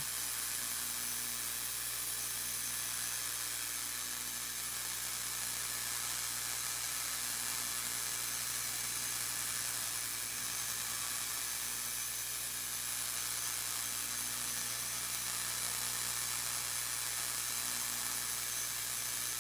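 Rotary spark gap firing continuously, a steady hiss of rapid sparks over the whir of the brushless AC blower motor that spins it, with a steady low electrical hum underneath.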